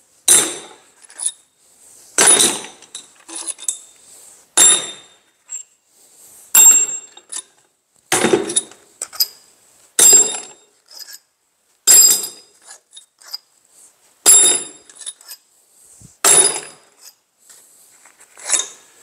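Sharp metal-on-metal clinks with a short bright ring, about one every one to two seconds, as steel bolts and tools are handled on top of an engine's cylinder head while the head bolts are checked for being fully unscrewed.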